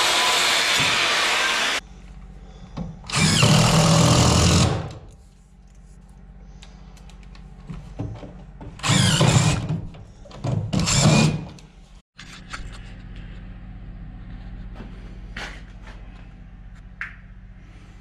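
Power drill running: a loud steady whir that cuts off about two seconds in, then three short bursts of about a second each, stopping and starting.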